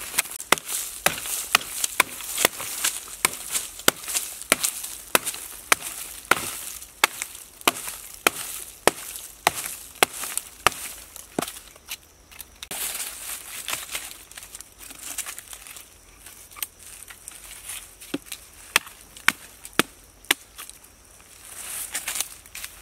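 Repeated sharp chopping strikes into a rotten log, breaking the decayed wood open. The blows come about two a second for the first half, then fewer and further apart.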